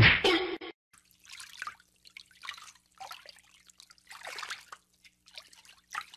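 A corgi wading through shallow water, its legs splashing and sloshing in short irregular bursts about once a second. A brief loud burst of noise comes right at the start.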